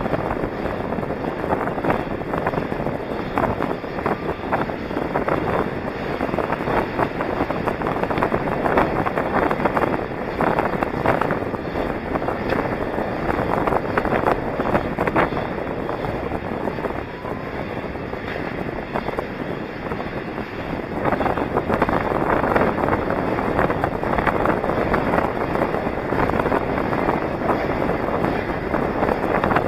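Wind rushing over the microphone of a helmet-mounted camera on a moving inline skater, mixed with the rolling noise of skate wheels on asphalt and scattered small clicks. It grows a little louder about two-thirds of the way through.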